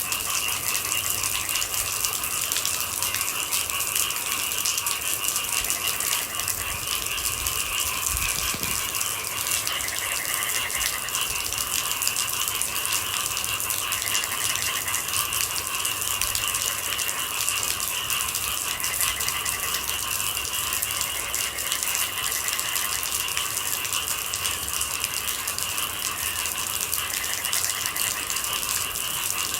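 Steady rain pattering in a dense, even spray of fine drops. Under it runs a constant high-pitched chorus of night animals, with faint short trills every few seconds.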